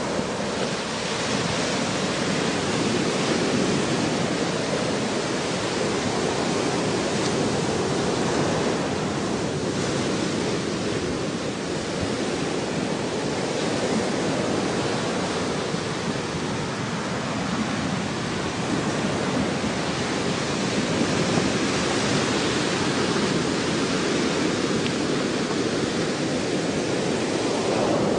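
Ocean surf: a steady rush of breaking waves that swells and eases slowly.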